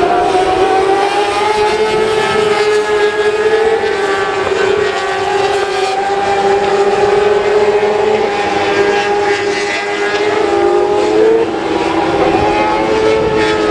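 Several 600 cc four-cylinder supersport racing motorcycles running at high revs around a race circuit, their overlapping engine notes rising and dipping as they accelerate, shift and corner.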